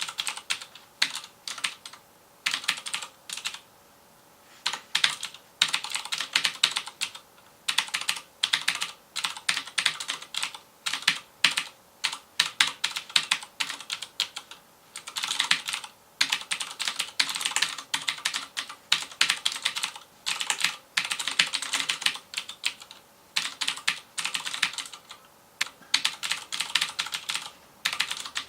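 Fast typing on a FILCO Majestouch Convertible 2 mechanical keyboard with clicky Cherry MX Blue switches: quick runs of sharp keystroke clicks broken by short pauses.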